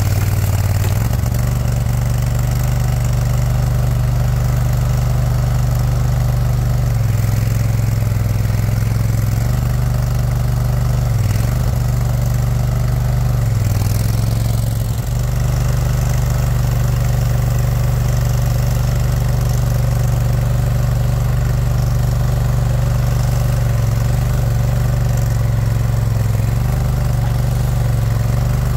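The Kohler 27 hp Command Pro V-twin engine of a Boxer 427 mini skid loader running steadily, its note dipping briefly every few seconds as the grapple and boom hydraulics are worked to grip and lift a log.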